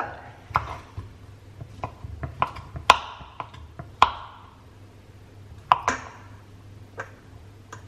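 Kitchen knife cutting a block of feta into cubes on a wooden cutting board: irregular sharp taps of the blade against the board, the loudest about three seconds in.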